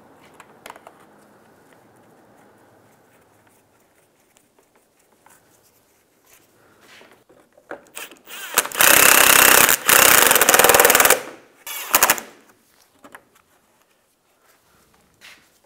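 Cordless power tool driving in the screws that hold the plastic splash shield under the front bumper, with a fast hammering rattle: two runs of about a second each with a short break, starting about eight and a half seconds in, then a brief third burst.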